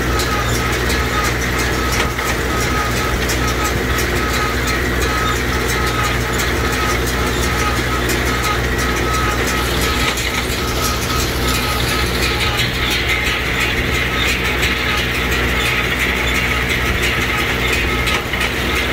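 Fiat 640 tractor's diesel engine running steadily under load, driving a Galligani 4500 small square baler through the PTO shaft, with the baler's pickup and plunger clattering in a steady, regular beat.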